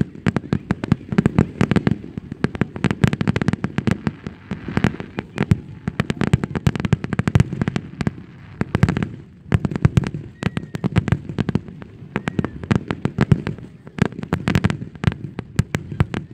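Fireworks display going off in a rapid barrage, a dense string of shell bursts and bangs several a second, with a brief lull about nine seconds in.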